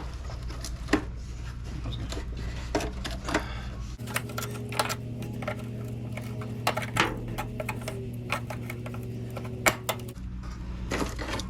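Scattered clicks and metallic clinks of hand tools and small parts being worked on a car, over a steady low hum.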